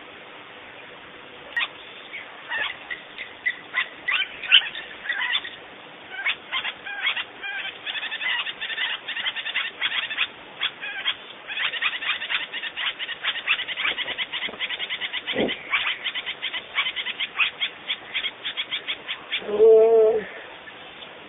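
Birds calling: a long run of rapid, high chirping notes, with one louder, lower-pitched call near the end.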